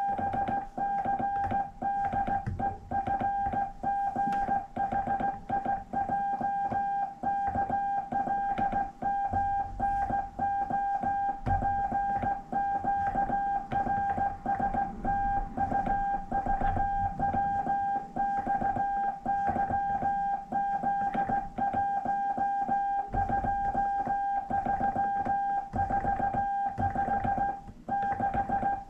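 Morse code sent by hand on a straight key: a single-pitched sidetone beeping on and off in dots and dashes, with the key clicking as it is pressed, and a short pause near the end.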